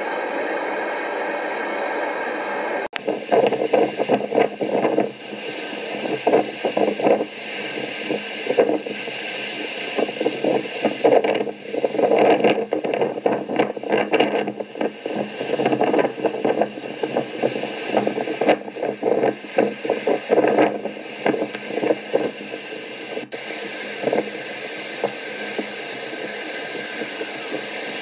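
Cyclone-force wind blowing hard and buffeting the microphone in uneven gusts. There is a steadier hiss in the first three seconds and again after an abrupt change near the end.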